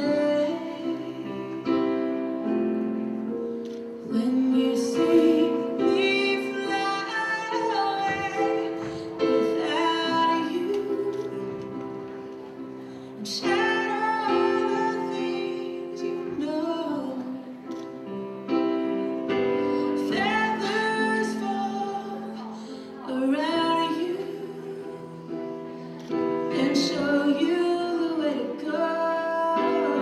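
A song playing, with a woman singing over held instrumental chords.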